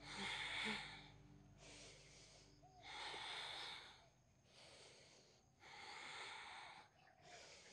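A woman breathing deeply in and out: about three full breaths, each a breathy rush with short pauses between, alternating a longer, louder breath with a shorter, softer one. The breaths are paced to a slow yoga side-bend.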